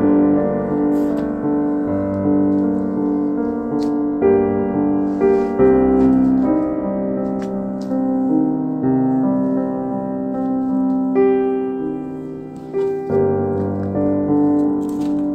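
Background music: a slow piano piece of held notes that change about once a second.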